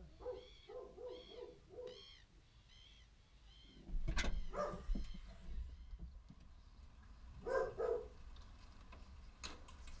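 A bird calling in a quick run of short repeated notes, about three a second, fading out after a few seconds. A sharp knock about four seconds in and a thud about three seconds later are the loudest sounds, with a click near the end.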